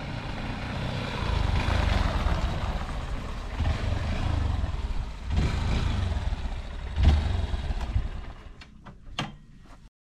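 Honda XR190 motorcycle's single-cylinder engine running on the move under a rush of wind noise; the sound drops away about eight seconds in, with a few short knocks near the end.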